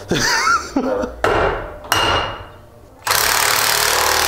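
Impact wrench tightening bolts on a front wheel hub assembly: short bursts of hammering a little over a second in and about two seconds in, then a longer steady run of about a second near the end.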